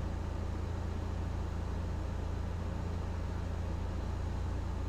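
Cessna 172 Skyhawk's piston engine and propeller running steadily at reduced power on final approach, heard as a low, even drone inside the cabin.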